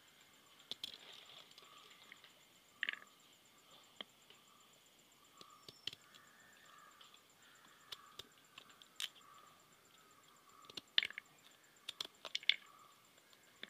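Knife cutting peeled jackfruit seeds into quarters by hand: scattered sharp clicks as the blade goes through each seed and the pieces drop into the tub.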